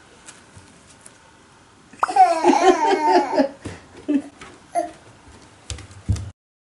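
A toddler's laughing babble about two seconds in, lasting about a second and a half, followed by a few short sounds and soft knocks; the sound cuts off suddenly near the end.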